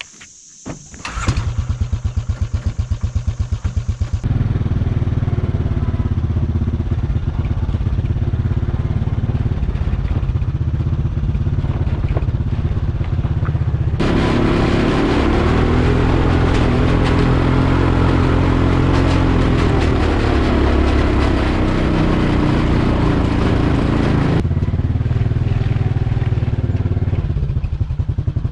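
A four-wheeler's engine starts about a second in and idles with an even pulse. It then runs steadily as the ATV rides up a trail, growing louder with its pitch shifting for a long stretch in the middle before easing back.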